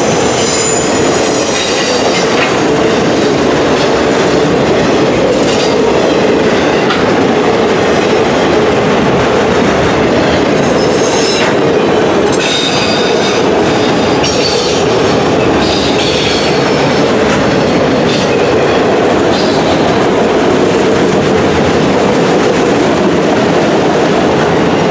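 Long freight train of autorack cars rolling past close by: a loud, steady rolling noise of wheels on rail. Short high-pitched metal squeals come and go several times over it.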